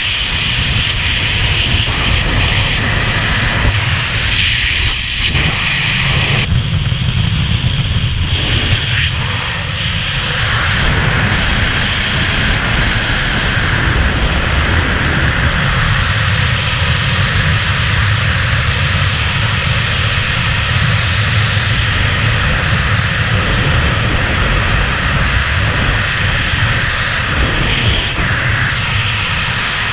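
Freefall wind rushing over a helmet-mounted action camera's microphone, loud and steady, at head-down freefly speed.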